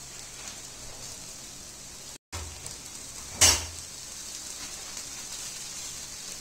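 Soaked poha tipped and pushed by hand out of a stainless steel mesh strainer into a steel kadhai, over a faint steady sizzle. One sharp knock, the strainer against the pan, about three and a half seconds in; the sound drops out for an instant a little past two seconds.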